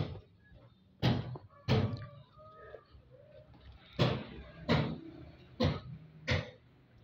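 Footsteps of a person walking over grassy ground: about six short thuds, loosely paired, each pair with its steps about two-thirds of a second apart.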